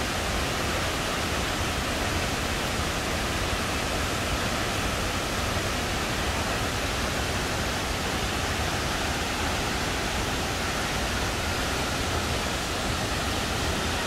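Misol-Ha waterfall's falling water: a steady, even rush that does not change.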